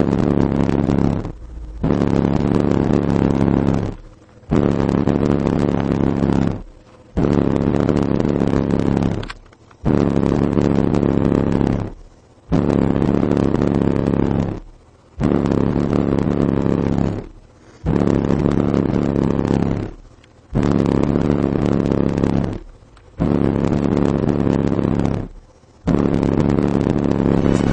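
Heavily distorted bass from a 15-inch Kicker L7 subwoofer in a ported enclosure tuned to 25 Hz, played at high output. It comes in long bass notes of about two seconds with brief gaps, repeating every two and a half seconds or so.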